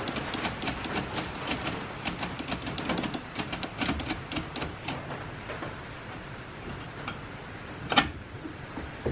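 1950s Olympia Deluxe manual typewriter clacking as its keys and typebars are worked: a quick run of sharp strikes, several a second, for about the first five seconds, then a few scattered clicks and one louder clack near the end.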